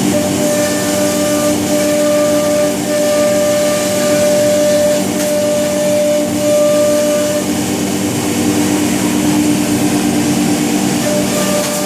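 Weeke CNC router cutting, a steady whine with overtones over a constant rush of air. The whine breaks off about two-thirds of the way through and comes back near the end.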